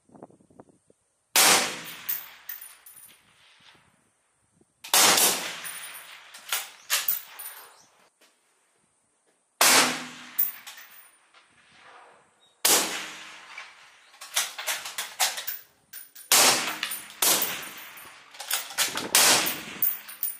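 A series of loud, sharp bangs, each followed by echoing clatter. The first few come several seconds apart, and they come faster in the second half.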